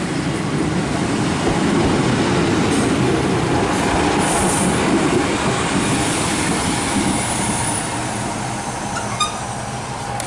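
Class 153 single-car diesel multiple unit running into the platform and passing close by: engine and wheels on the rails, loudest in the middle as it goes past. A brief high squeal about four and a half seconds in.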